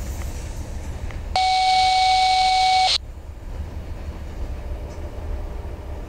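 A single steady electronic beep with a hiss of radio static, about a second and a half long, starting about a second and a half in and cutting off abruptly, from a railroad radio scanner. Under it runs a low rumble.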